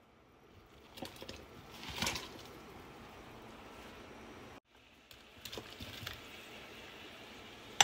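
Pot of water at a rolling boil bubbling, with splashes as chunks of raw beef slide in from a foam tray about two seconds in, and again as pieces of corn on the cob drop in near the end.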